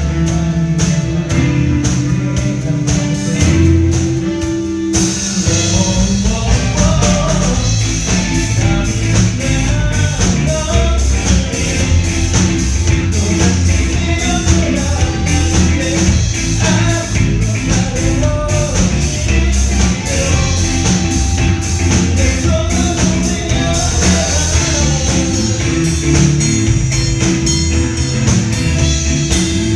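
Live pop-rock band playing with drum kit, bass, electric guitar and keyboard. The opening seconds are sparser with held notes. About five seconds in, the full drum kit with steady cymbals comes in, and a lead vocal sings over the band.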